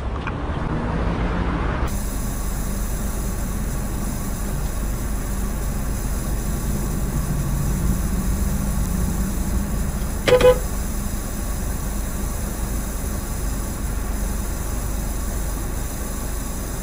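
Steady low hum of a car's engine and road noise, heard from inside the cabin, with one short pitched beep about ten seconds in.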